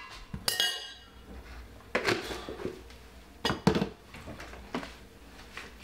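A handful of sharp clinks and knocks from a metal spoon and other kitchen utensils being handled off to the side, the first with a short metallic ring about half a second in.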